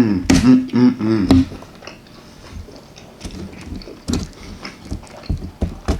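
Aluminum foil on a baking sheet crinkling and tearing under a utensil, with scattered sharp clicks and taps. A short hum of voice fills the first second and a half.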